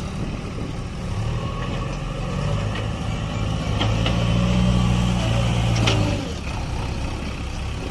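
Heavy diesel engine running steadily. It grows louder for about two seconds near the middle, as if revved or put under load, then eases back about six seconds in.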